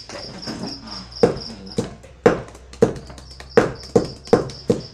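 Knife blade hacking into a hand-held green papaya to shred it: about eight sharp chops, coming faster near the end. A high, even pulsing chirp runs behind.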